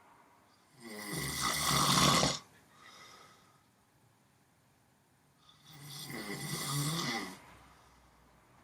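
A man snoring loudly: two long snores about four and a half seconds apart, each lasting around a second and a half, the first louder and building toward its end.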